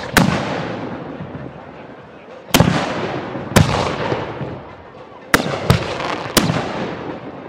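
Fireworks bursting overhead: six loud bangs, one to two seconds apart with two close together past the middle. Each bang trails off in a long fading echo.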